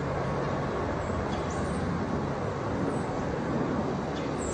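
Helicopter flying in a circle overhead, a steady drone of engine and rotor noise.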